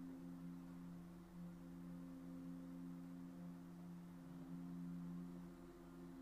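Soft meditation background music: a drone of a few low, steady tones held throughout.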